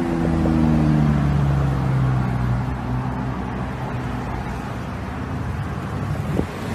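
A vehicle engine hums, its pitch slowly dropping over the first three or four seconds and then holding low and steady, over a constant rushing noise.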